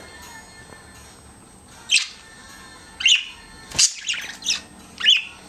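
Budgerigars chirping: about five short, high calls, starting about two seconds in and coming roughly every half second to a second.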